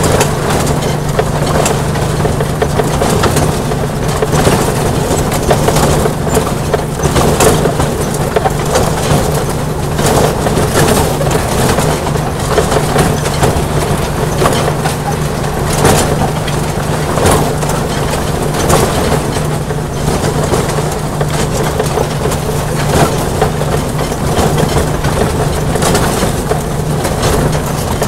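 Ride-on miniature train running along its track: a steady low hum with rattling and clattering from the wheels and cars on the rails.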